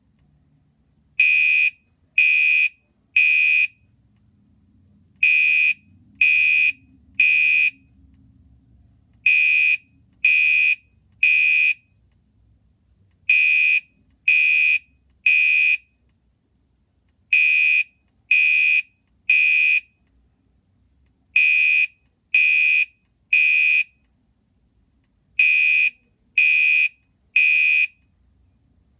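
Gentex Commander 3 fire alarm horn sounding the temporal three pattern. It gives three loud, high beeps of about half a second each, then a pause of about a second and a half, repeating every four seconds.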